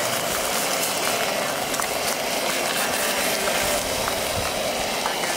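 Food sizzling steadily in a hot pan, with fine crackles, hot enough that it is scorching badly.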